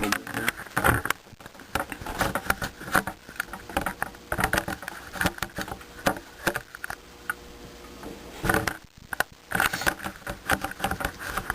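Irregular clicking, rattling and knocking of parts and the camera being handled close to the microphone, with a short break about three quarters of the way through.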